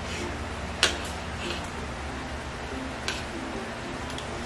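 Spoons and forks clicking against plates while eating, as a few sharp clicks. The loudest comes about a second in and another about three seconds in, over a low room hum.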